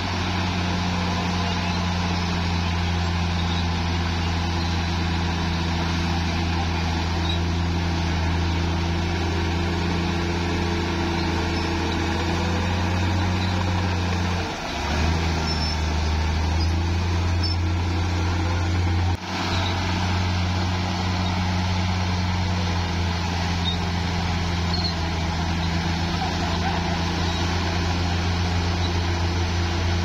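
Heavy bulldozer diesel engine running steadily with a deep drone. About halfway the drone dips briefly and comes back at a slightly different pitch, and a few seconds later it breaks off for an instant.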